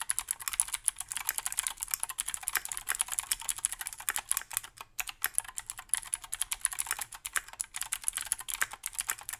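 Typing on a Keychron Q2 aluminium mechanical keyboard with stock Gateron G Pro Blue clicky switches and PBT keycaps: a rapid run of sharp clicks, fairly high and without resonance. The typing breaks off for a moment a little before halfway.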